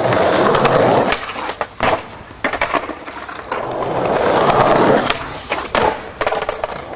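Skateboard wheels rolling over stone, the rolling noise swelling up twice. Each swell is followed by a run of sharp clacks as the board's tail and wheels strike the ground.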